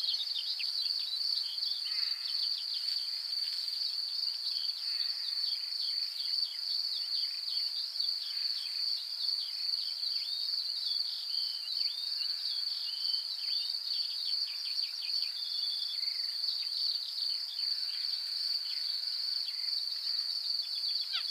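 Insects trilling steadily at a high pitch, with birds calling over them in many quick, short falling chirps.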